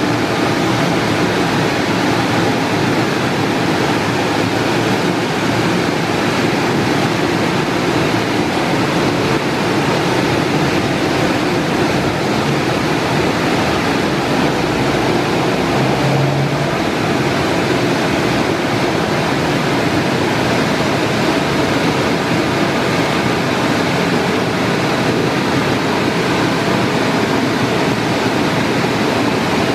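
Istobal M'Start rollover car wash running over a car: a steady rush of water spray and spinning brushes, with a short low hum about halfway through.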